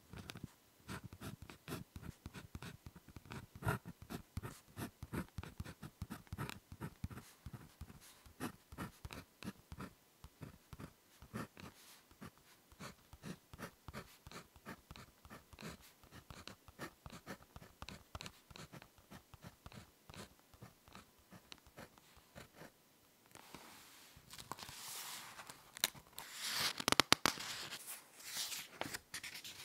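Ballpoint pen writing on paper, close to the microphone: a quick run of short scratching strokes and taps as each character is written. Near the end the writing stops and gives way to a louder rustling and crackling of paper.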